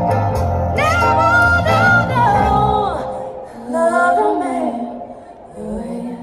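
Music with a singing voice over a heavy bass line. About three seconds in the bass drops out and the music gets quieter, the voice carrying on alone.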